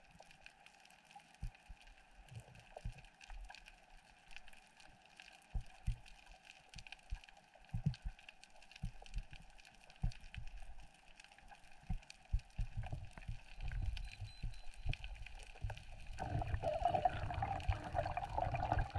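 Underwater sound of water moving around the camera in a rough sea: a faint steady hiss with scattered low knocks and gurgles, growing into a louder rushing surge about three-quarters of the way through.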